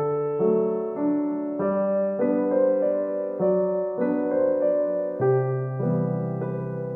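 Background piano music with slow, sustained chords and notes changing about once a second.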